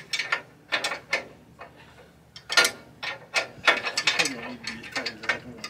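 Ratchet wrench clicking in short, irregular bursts as a bolt on the tractor is turned.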